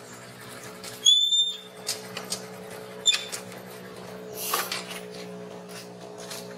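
Baby macaque giving a short high-pitched squeal about a second in, then a brief squeak about two seconds later.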